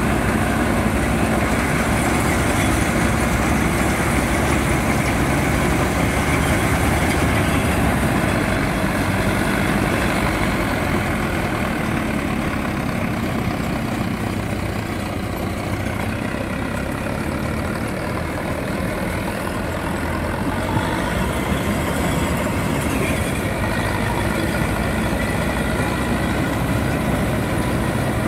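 Mahindra Arjun Novo 605 DI tractor's diesel engine running steadily while driving a tractor-mounted Balkar combine harvester cutting paddy.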